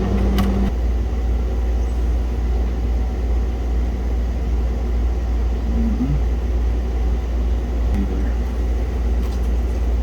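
A steady low rumble with a faint click about half a second in.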